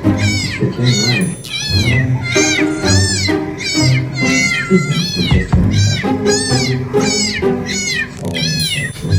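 Cat meows rising and falling in pitch, repeating rhythmically about twice a second over a music track with a steady bass line, as in a meow remix.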